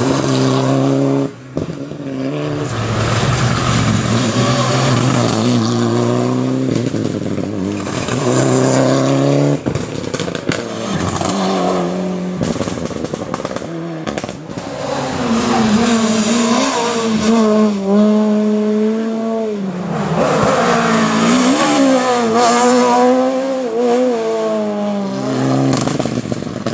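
Rally cars at full effort on a tarmac stage, one after another: engines revving hard, the pitch climbing and falling repeatedly through gear changes and lifts for the bend, with a short cut in the engine about a second in.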